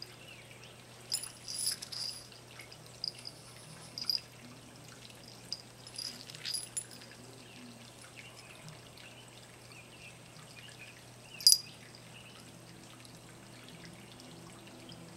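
Cat rolling and rubbing against rough concrete: scattered scraping and rustling of fur on the gritty surface, with a few sharp clicks, the loudest about eleven and a half seconds in. A faint steady hum runs underneath.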